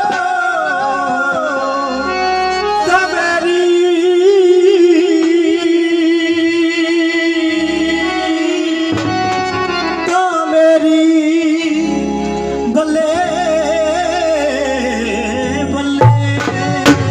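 A male singer holding long, wavering sung notes over a microphone and PA, with a steady instrumental backing; a few hand-drum strikes come in near the end.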